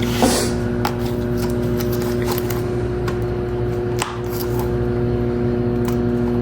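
Steady machine hum at several fixed pitches, with scattered light clicks and taps throughout.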